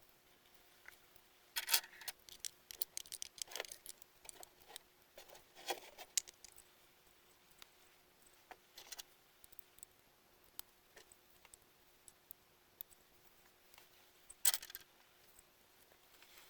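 Super Structs construction-toy pieces clicking and clattering as they are handled and fitted together: scattered light clicks, the loudest about two, four and six seconds in and again near the end.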